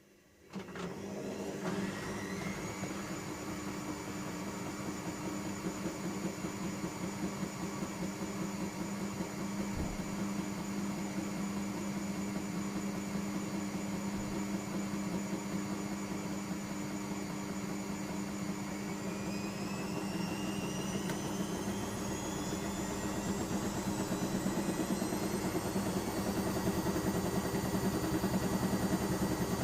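Bauknecht Super Eco 6413 washing machine's drum motor starting a spin: a motor whine that sets in suddenly and climbs to a steady speed within about two seconds, then rises again in pitch and loudness from about two-thirds of the way through as the drum speeds up.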